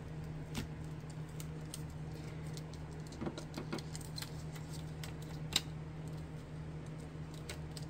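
Light handling of craft supplies on a tabletop: small scattered clicks and taps, with one sharper click about five and a half seconds in, over a steady low hum.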